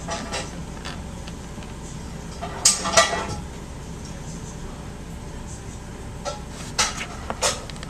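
A cat's paw tapping and clinking against the glass wall of a snake enclosure: two sharp taps close together about three seconds in and two more near the end, over a low steady hum.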